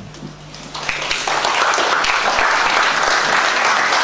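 Audience applauding, starting up about a second in and holding steady.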